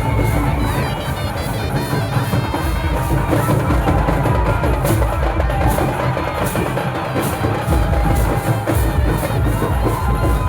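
Loud music driven by heavy, steady drum beats, with a melody line running over the drumming.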